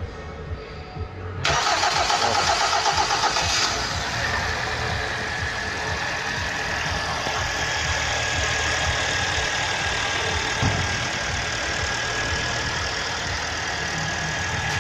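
Car engine freshly rebuilt after a full overhaul, cranked by the starter for about two seconds and catching on the first try, then idling steadily with a steady high whine.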